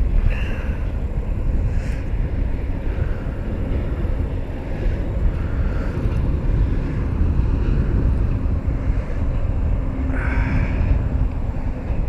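Low, uneven rumble of wind buffeting the microphone outdoors, with faint brief sounds higher up near the start and about ten seconds in.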